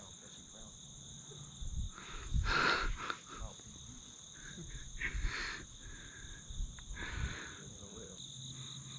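Insect chorus in a grass field: a steady, high-pitched drone of two even tones. A few brief, duller noises break through, the loudest about two and a half seconds in.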